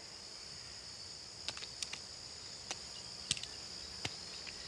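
Insects chirring steadily in a high, even drone, with a few faint light clicks scattered through it.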